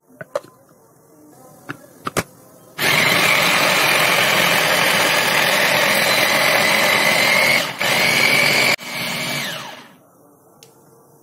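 Electric mini food chopper grinding red chillies, bird's-eye chillies, shallots, garlic, galangal and ginger into a spice paste. A few clicks as the lid and motor head are fitted, then about three seconds in the motor starts and runs loud and steady, cutting out briefly once, before it is released and spins down with a falling whine.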